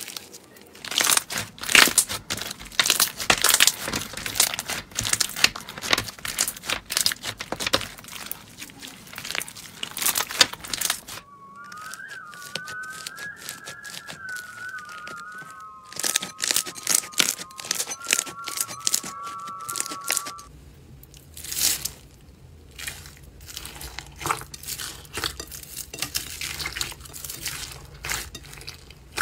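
Hands stretching, squeezing and pressing slime: dense crackling, popping and crinkling clicks. The slime changes twice: clear stretchy slime, then chunky green slime, then pink slime with foam beads. Under the middle part a faint wavering whistle-like tone runs for several seconds.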